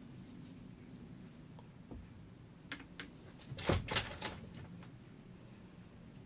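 Faint steady room hum, then, about three seconds in, a quick cluster of light clicks and knocks as the paintbrush is reloaded at the watercolour palette; the loudest knock comes just before four seconds in.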